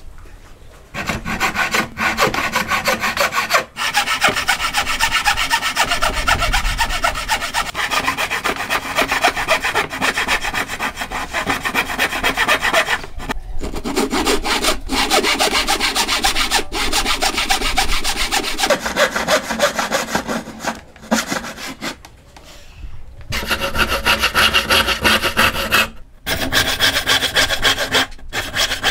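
Wooden frame saw cutting dovetails into a wide wooden board, in fast, steady back-and-forth strokes. The sawing starts about a second in and stops briefly a few times.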